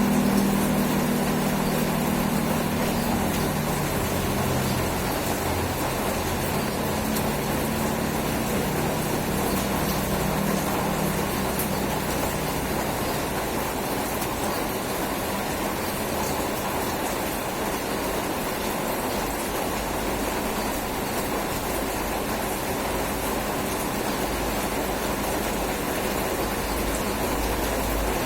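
Steady rain falling, an even hiss with no let-up. A low hum fades out over the first few seconds.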